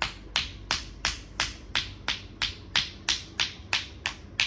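Sports massage percussion: a therapist's hands slapping rhythmically on a bare leg, sharp and even, about three strikes a second.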